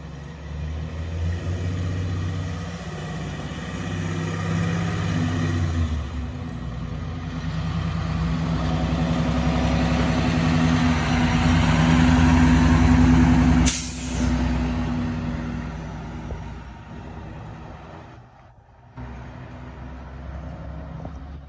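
Fire engine's diesel engine running as the truck drives slowly past, louder as it approaches and fading as it pulls away, with a short sharp hiss of air brakes about fourteen seconds in.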